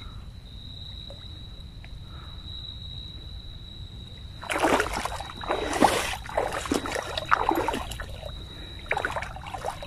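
Shallow water splashing and sloshing irregularly, as someone wades among mangrove roots, starting about halfway in. Before that there is only a low steady hiss with a faint high steady tone.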